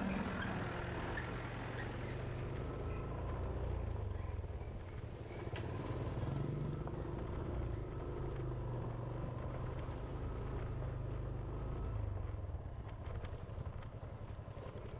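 Motorcycle engine running at low road speed, its pitch shifting a little with the throttle.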